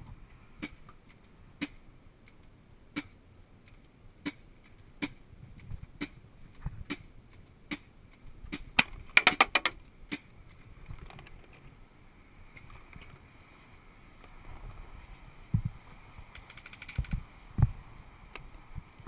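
Paintball markers firing: single shots pop about once a second, then a rapid string of loud shots comes about nine seconds in. A fainter, quicker rattle of shots follows near the end, with a few dull thumps.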